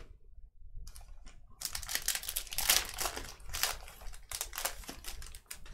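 Foil wrapper of a Panini Select football card pack being torn open and crinkled by hand, in irregular crackling spells starting about a second and a half in.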